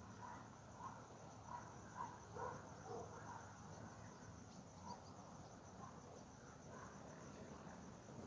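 Faint crickets chirping in a steady, high, pulsing trill, with scattered short, lower chirps in the background, most of them in the first few seconds.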